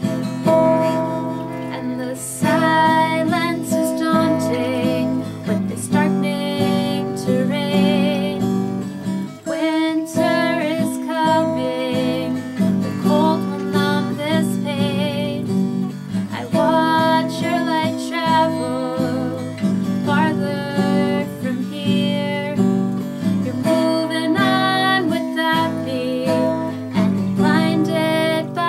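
Acoustic guitar strummed through the chords of a slow ballad, an instrumental passage between sung verses.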